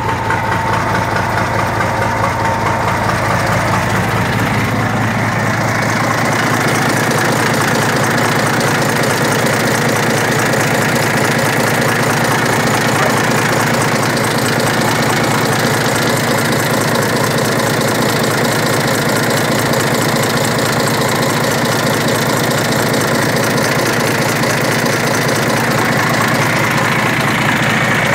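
Scania diesel engine in a Fiat truck idling steadily at an even pitch, an engine the owner calls mechanically new.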